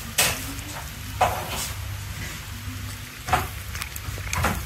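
Vervet monkey eating fruit close to the microphone: about five short, irregular crackly chewing sounds over a steady low hum.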